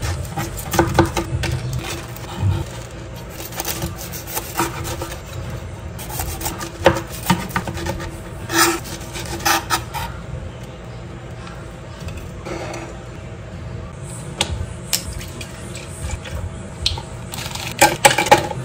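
Chef's knife slicing through crispy breaded fried chicken on a chopping board: irregular crunches and scrapes, with the blade and metal tongs clicking and tapping against the board.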